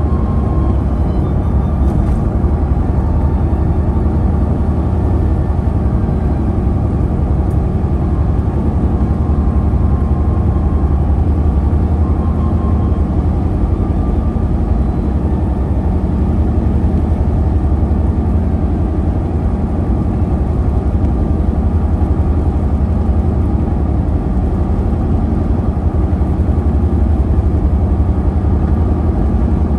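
Car on the move: a steady, deep rumble of tyres and engine that stays even throughout.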